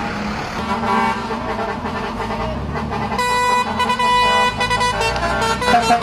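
Lorries driving past with a low engine rumble, and a truck horn sounding one steady note for about two seconds, starting about three seconds in.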